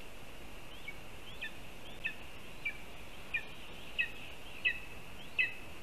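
Lesser spotted eagle calling: a series of about eight short, evenly spaced call notes, growing louder toward the end, over a steady hiss.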